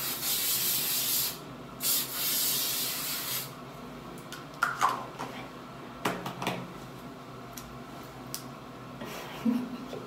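Aerosol spray can sprayed onto braided hair in two hissing bursts, each about a second and a half long, in the first few seconds. A few light clicks and knocks of handling follow.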